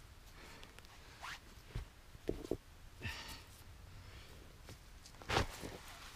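Boots crunching in snow and rocks being handled and set down on snow: a scatter of soft crunches and knocks, the loudest about five and a half seconds in.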